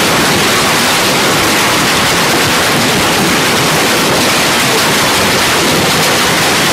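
Heavy hail pelting down on a swimming pool, paving and garden plants: a loud, dense, unbroken roar.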